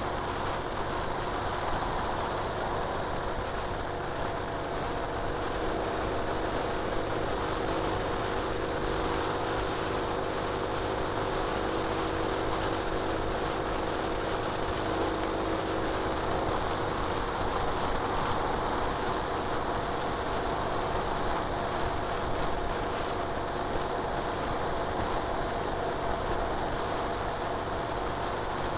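Ural Retro sidecar motorcycle's flat-twin engine running at a steady cruising speed, mixed with wind and road noise.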